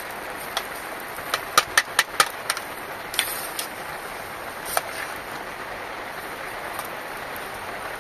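Steady rain, with a quick run of five or six sharp knocks about a second and a half in and a few single knocks after.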